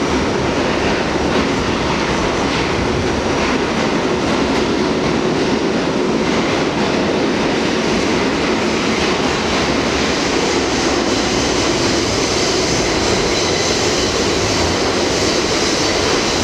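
Heard from inside an R68A subway car running through the tunnel, a steady loud rumble and clatter of wheels on rail. A thin high wheel squeal grows in the second half.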